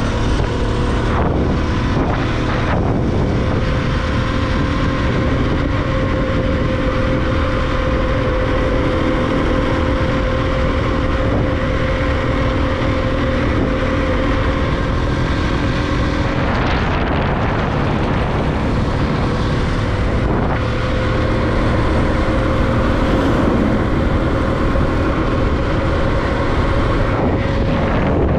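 Bajaj Pulsar NS200's single-cylinder engine running steadily at cruising speed, under wind noise on the microphone.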